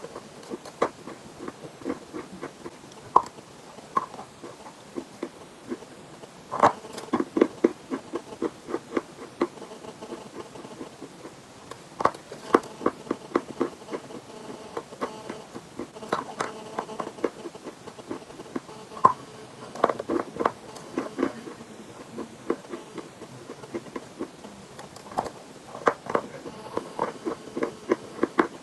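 Chalk being bitten and chewed close to the microphone: runs of sharp, crisp crunches every few seconds, with softer clicks between.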